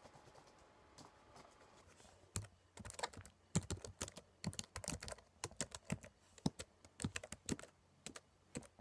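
Fast typing on a laptop keyboard: a quick, irregular clatter of key clicks that starts about two and a half seconds in.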